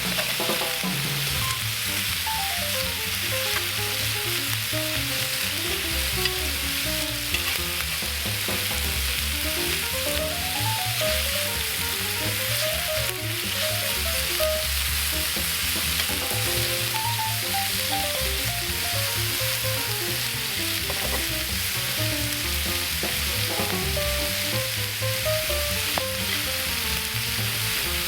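Steady sizzling of food frying, under soft background music: short melodic notes over a low bass line.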